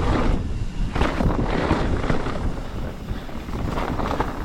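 Mountain bike rolling fast down a dirt trail, heard through a GoPro's microphone: wind buffeting the mic over steady tyre noise, with several sharp knocks and rattles from the bike over rough ground.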